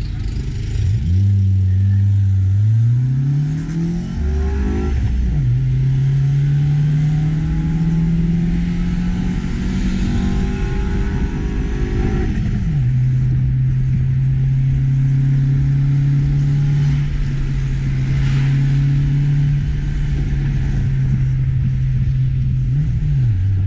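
Car engine heard from inside the cabin, accelerating up through the gears. The pitch climbs, drops at a gear change about five seconds in, climbs slowly again and drops near the halfway point, then holds steady at cruising revs, with a brief blip of revs near the end.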